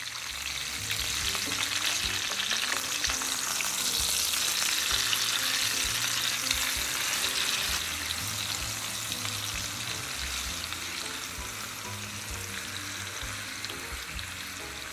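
Chicken thighs sizzling as they brown in hot oil in a frying pan, the hiss swelling in the middle and easing off toward the end. Metal tongs turn the pieces over, with occasional light knocks against the pan.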